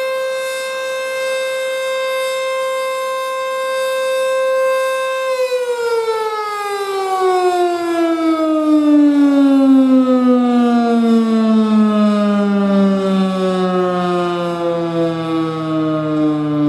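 ACA Screamer S-5 outdoor warning siren holding a steady alert tone, then, about five seconds in, winding down, its pitch falling slowly and steadily as the cycle ends. A fainter lower tone joins near the end.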